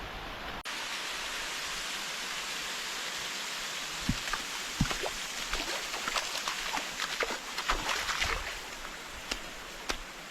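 Creek water running through a slot canyon as a steady rushing hiss, with a run of small splashes and plops from about four seconds in until near the end.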